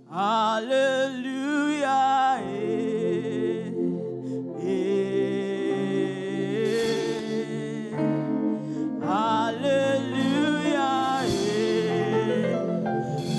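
Gospel choir music: a praise song sung over sustained chords. A wavering lead voice rises out of it at the start and again about nine seconds in.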